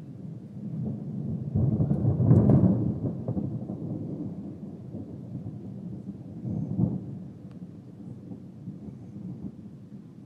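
Thunder rumbling. It swells over the first two seconds, peaks about two and a half seconds in, and fades away slowly, with a second, shorter rumble about seven seconds in.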